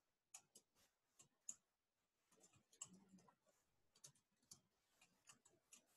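Faint computer keyboard typing: irregular keystroke clicks, a few to several a second, as a line of code is typed.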